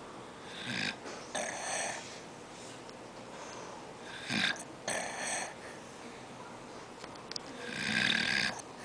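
An old man snoring in his sleep: three snoring breaths about three and a half seconds apart, the last the longest.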